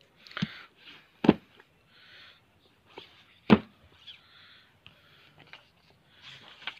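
Paperback books being handled: covers and pages rustling and sliding, with three sharp knocks, the loudest about three and a half seconds in, as the top book's cover is opened.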